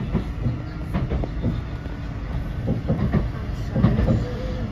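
Blackpool tram running along the track, heard from inside the car: a steady low rumble with irregular knocks and clicks from the wheels on the rails.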